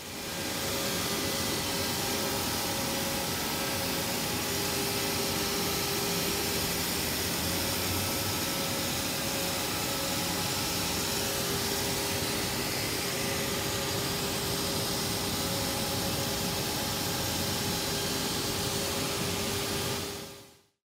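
Steady machine noise in a stone workshop: an even, unchanging rushing noise with a few faint steady hums under it. It fades out shortly before the end.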